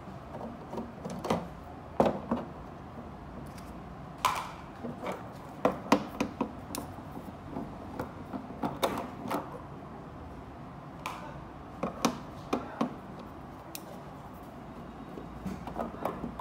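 Screwdriver clicking and knocking against screws and the plastic back cover of an LG LED TV as the screws are undone: irregular sharp taps and clicks, with short pauses between them.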